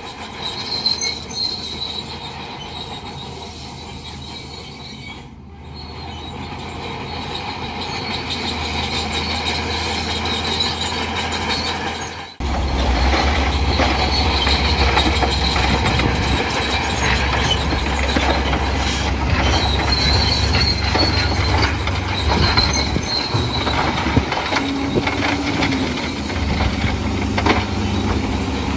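Crawler bulldozer at work: diesel engine running with steel tracks squealing and clanking. The sound breaks off abruptly about twelve seconds in and picks up again with a stronger low engine rumble.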